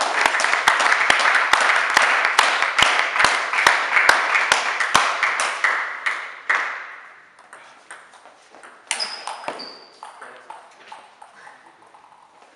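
Spectators cheering with rhythmic clapping, two or three claps a second, after a point in a table tennis match. It fades out about six and a half seconds in, leaving scattered light taps of the table tennis ball as the next serve is prepared.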